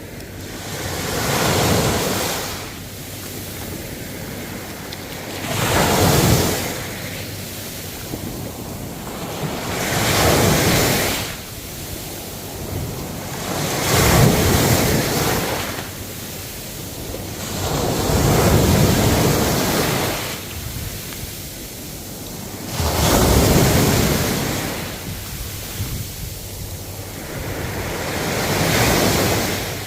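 Ocean waves breaking and washing up, each surge swelling and falling away roughly every four to five seconds, seven times.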